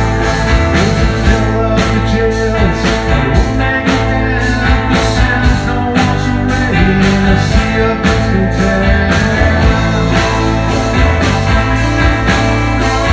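Rock band playing live: electric guitars, electric bass and a drum kit, with a steady drum beat.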